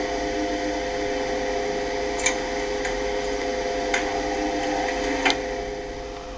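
Lift car in motion: a steady hum of several tones, with a few sharp clicks and the hum fading a little near the end.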